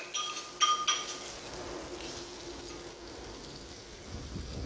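A metal ladle clinks against a small clay pot a few times in the first second while lemongrass, garlic, chili and kaffir lime leaves stir-fry in oil, followed by a steady sizzle.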